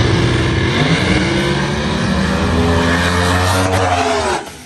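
Drag-racing car engines at full throttle, accelerating hard down the strip, their pitch climbing. The sound stops suddenly near the end.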